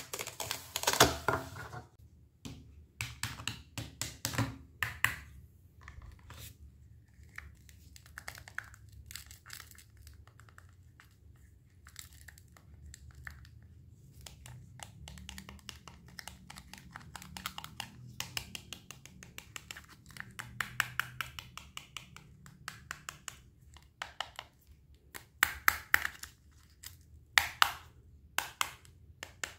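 Knife cutting through fresh produce: a run of short, crisp cuts and snaps, loudest about a second in and again near the end, with softer scraping and rustling between.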